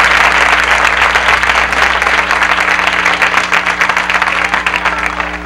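Studio audience applauding: dense, steady clapping from a seated crowd, with a faint steady low hum beneath.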